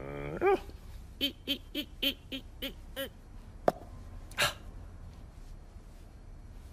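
A cartoon character's wordless vocal sounds: a short rising call, then six quick, evenly spaced hoot-like syllables, followed by a sharp click and a brief hissing burst.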